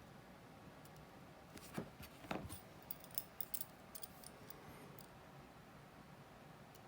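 A cluster of faint, sharp little clicks and taps of watchmaker's tools on watch parts, a dozen or so over about three seconds in the middle.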